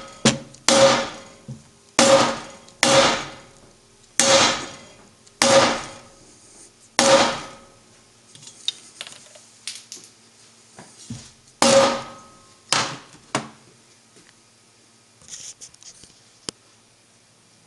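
Hammer blows on the rim lip of an aluminium alloy wheel, knocking out a dent at a welded crack repair. About ten sharp strikes, each with a short metallic ring, come a second or so apart, with a pause of a few seconds before the last three, which are lighter, and small taps and handling noises in between.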